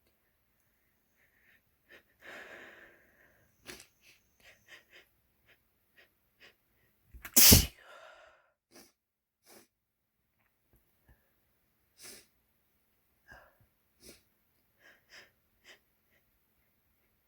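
A single loud, wet sneeze about seven and a half seconds in. A softer breathy rush comes about two seconds in, and small sniffs and clicks are scattered around it.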